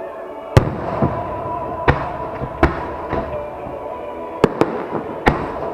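Aerial firework shells bursting over the sea, a string of about seven sharp bangs at irregular intervals, over a steady background of music.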